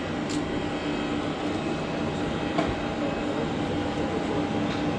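Jet airliner engines running steadily, a constant rushing hum with several steady whining tones held through, no rise or fall in pitch.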